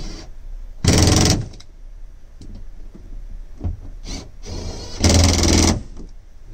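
Handheld cordless power driver run in two short bursts about four seconds apart, driving fasteners into the cab's overhead interior trim, with quiet handling and rustling between.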